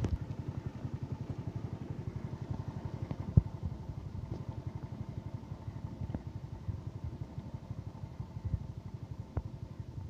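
Stationary engine driving a tubewell pump, running steadily with a fast, even chugging beat. A few sharp knocks sound over it, the loudest about a third of the way in.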